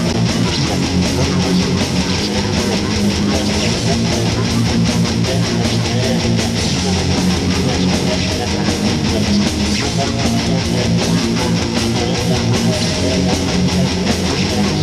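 Dark metal song played by a full band: distorted electric guitars strumming over bass and drums, loud and steady.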